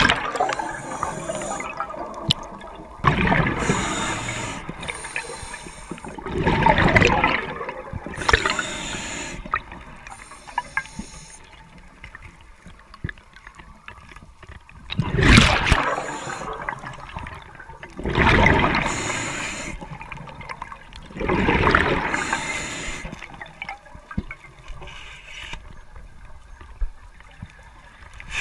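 A diver's exhaled breath bubbling out of the breathing regulator underwater, in bursts of bubbling every few seconds with quieter stretches between breaths.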